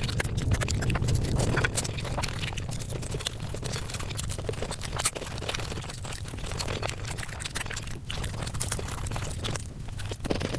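Close-up eating sounds of curry and rice being chewed and smacked, sped up to five times normal speed, so they come as a fast, irregular run of wet clicks and crunches.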